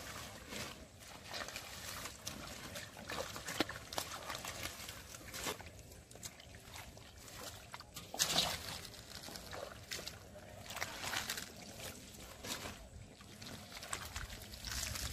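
Hands splashing and squelching through muddy shallow water among water hyacinth while grabbing catfish, with the wet slaps of the slippery fish being handled. Irregular splashes and sloshes, a louder one about eight seconds in.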